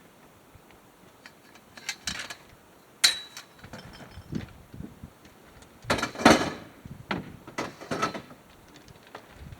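An irregular series of knocks, clunks and short scrapes, like objects being handled and set down, the loudest about six seconds in.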